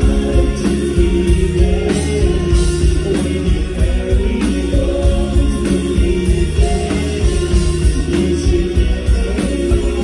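Live rock band playing: a male lead singer sings over electric guitars, bass and a steady drum beat.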